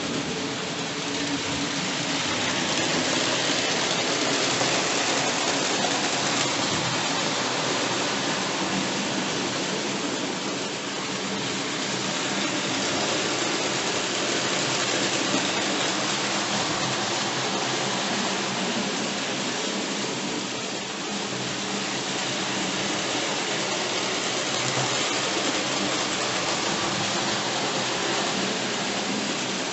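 Hornby Dublo 2-6-4 tank locomotive and its freight wagons running on three-rail tinplate track: a steady rattling rumble of wheels on the rails, with a faint motor hum.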